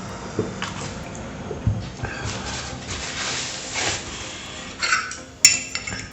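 Close-miked wet chewing and mouth sounds of someone eating, with a few sharp clicks, the sharpest near the end.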